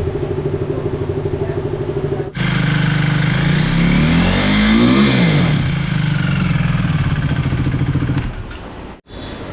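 Motorcycle engine idling with a steady pulse; after a sudden cut about two seconds in it runs louder, is revved up and back down once around the middle, then settles and drops away near the end.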